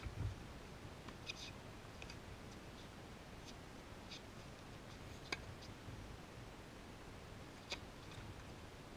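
Faint, distant tennis ball strikes on a hard court: a few light pops scattered through, with sharper hits about five seconds in and again near the end as the ball is served. A faint low rumble runs underneath.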